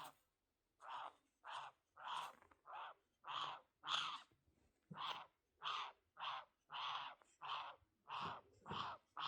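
Green-cheeked conure giving a rapid string of short, harsh calls, roughly two a second.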